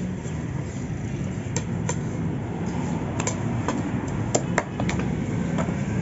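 Butcher's knife knocking against a wooden stump chopping block while cutting up a raw chicken: about ten sharp, irregular taps, bunched together between about three and five seconds in, over a steady low background rumble.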